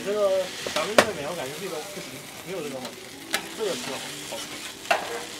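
Food sizzling on a food truck's flat-top griddle while a metal spatula stirs and scrapes it. Three sharp clacks of the spatula on the griddle plate, about a second, three seconds and five seconds in.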